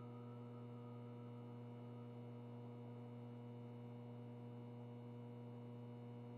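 A faint, steady low hum with fainter steady higher tones above it, unchanging.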